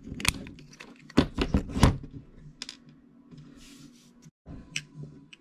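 Sharp clicks and light taps of small hard parts being handled as a carbon-fibre bottom plate is fitted onto an RC helicopter's frame with a hex driver in hand. There is a quick cluster of clicks in the first two seconds, then a few scattered ones.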